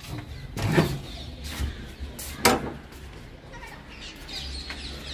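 Handling noise from a hand-held phone being carried: a low rumble with two loud rubbing knocks, about a second in and again about two and a half seconds in. Faint bird chirps come in near the end.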